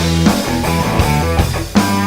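Rock band playing, with guitar to the fore over a steady bass. The music drops back briefly and comes in again with a hit near the end.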